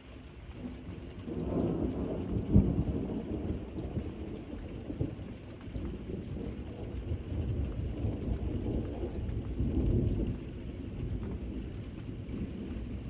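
Thunder rolling over steady rain: a rumble builds about a second in, with one sharp crack a couple of seconds in, then rolls on, swells again toward the end and eases off.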